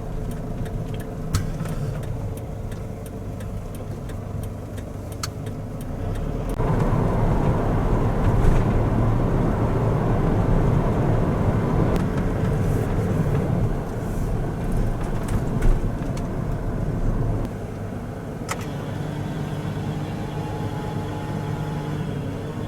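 Camper van engine and road noise while driving: a steady hum that grows louder about six seconds in, holds, and eases back down about eleven seconds later.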